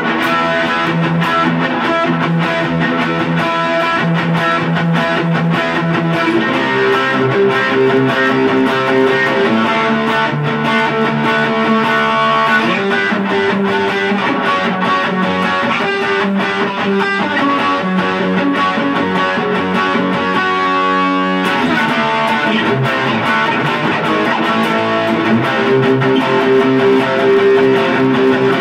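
Electric guitar played through a Boss Katana Mini amp: continuous chords and single-note lines. A quick run of rapid strokes about two-thirds of the way through leads into a new chord.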